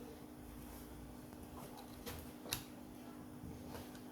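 A few faint, sharp clicks and taps of small parts being handled on an opened laptop, the clearest about two and a half seconds in, over a low steady hum.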